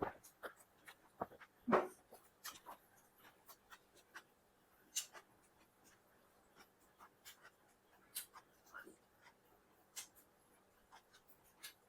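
Eating sounds from someone eating chicken biryani: irregular soft clicks and smacks, with a louder one a little under two seconds in.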